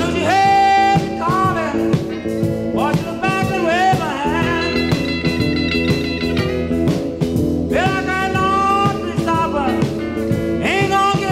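Blues record playing back from mono vinyl: an instrumental break, a lead instrument bending and sliding its notes in short phrases over a steady band.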